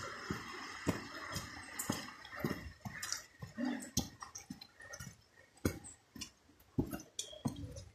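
Footsteps and scuffs on a dirt hiking trail, irregular at about two a second, with rustling from the phone being carried.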